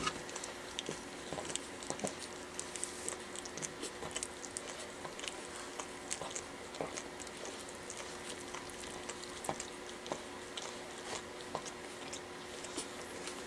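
Four-week-old Pekingese puppies squirming on a blanket while a hand rubs their bellies: quiet rustling with many small scattered clicks, over a faint steady hum.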